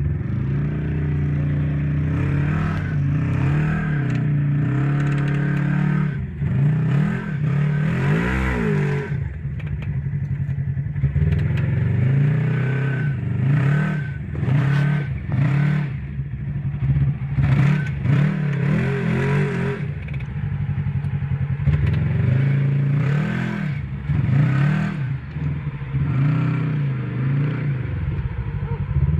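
Side-by-side UTV engine running and revved again and again, its pitch rising and falling every few seconds, as the machine strains nose-down in a deep mud hole.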